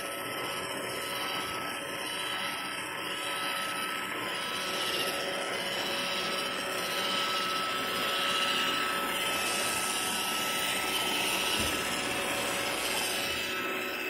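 iRobot Roomba robot vacuum running on carpet: a steady motor whine over the brush and suction noise. It grows louder toward the middle and eases off near the end.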